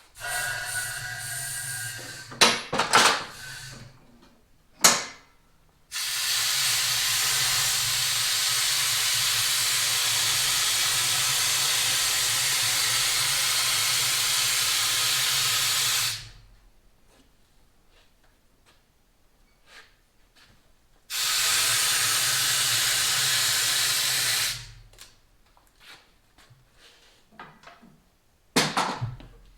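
Motorcycle lift being raised: a loud, steady hiss with a low hum in three bursts, the longest about ten seconds. There are a few short clanks around the second burst and near the end.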